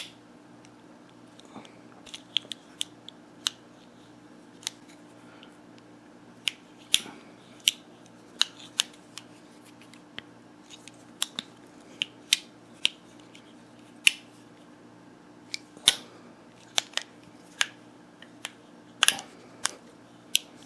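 Leatherman Super Tool 300 multitool being worked open and shut, its metal pliers and folding tools giving irregular sharp clicks and snaps, often several a second, with some pauses between.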